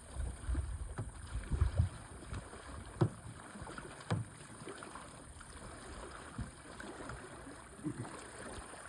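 Kayak paddle strokes dipping and splashing in the water, with a couple of sharp knocks about three and four seconds in.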